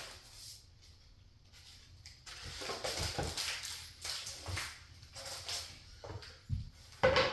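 Cardboard and foam packing being handled and shifted: irregular rustling and scraping, with a sharp knock just after seven seconds.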